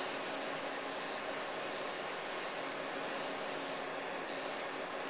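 Haas CNC mill running as its X axis is jogged toward zero: a steady mechanical hiss, whose high part drops away about four seconds in as the motion eases.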